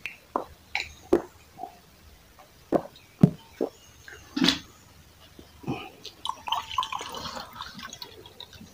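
Close-miked mouth sounds of a man eating: swallowing water from a glass, then irregular wet clicks and smacks of chewing rice and pork eaten by hand.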